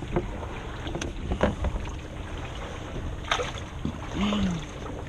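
Wind buffeting the microphone and water movement around a kayak, with a few sharp knocks about a second, a second and a half, and three seconds in, and a short vocal sound near the end.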